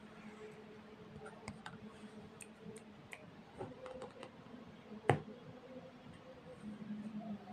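Irregular light clicks and ticks from budgerigars moving about a wire cage, with one louder tap about five seconds in. A faint steady hum runs underneath.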